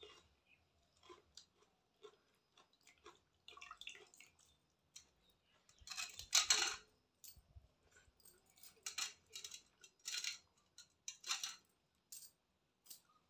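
Eating with the hand from a bowl of watered rice (pakhala): fingers mixing and scooping the soaked rice, with small clicks against the bowl and some chewing. Louder wet scrapes and squelches come in short bursts, the loudest about six seconds in.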